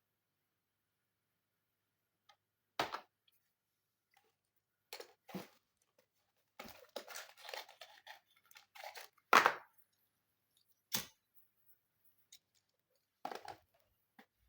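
Hands working on an all-in-one PC's plastic housing and parts: several sharp clicks and knocks with a stretch of rustling and scraping in the middle, the loudest click about nine seconds in.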